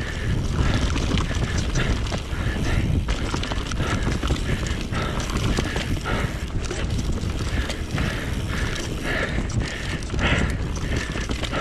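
Enduro mountain bike descending a dirt forest trail at speed: tyres, frame and chain rattling and knocking over roots and ruts, with repeated short bursts of the rear hub's freewheel ratchet buzzing while coasting. A steady rumble of wind on the microphone runs underneath.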